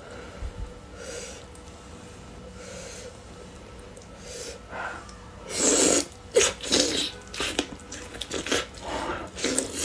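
Close-up eating sounds of a braised duck leg: quiet handling at first, then from about halfway through loud, wet, irregular bites, chewing and lip smacks on the sticky glazed meat.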